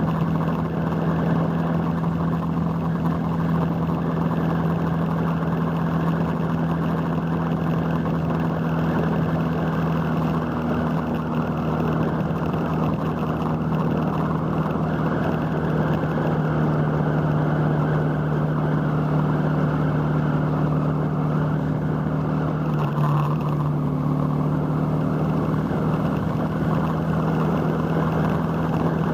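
Motorcycle engine running steadily at road speed, with wind rushing over the microphone; the engine note shifts briefly about three-quarters of the way through.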